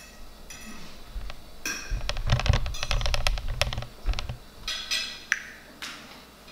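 Forks and knives clicking and scraping on dinner plates, with a rapid run of clicks and dull knocks between about two and four seconds in.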